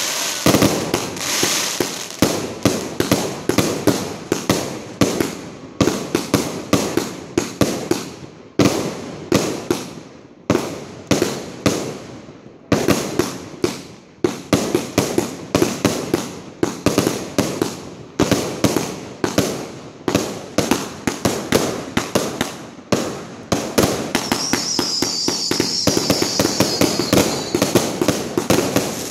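Multi-shot consumer fireworks cake firing shot after shot, sharp bangs a few a second with short gaps now and then. A high hiss rides over the bangs for a few seconds near the end.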